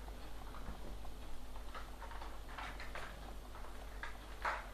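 Faint, scattered clicks and scrapes of small parts being handled as a wireless LAN card is taken out of a laptop, over a steady low hum.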